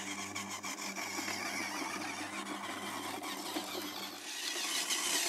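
A small electric motor, as in a remote-control buggy's drive, whirs steadily over a hiss, with a few clicks, and stops about four seconds in.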